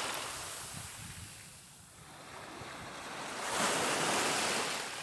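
Small sea waves washing onto the shore: one wash fading over the first two seconds and another swelling about three and a half seconds in.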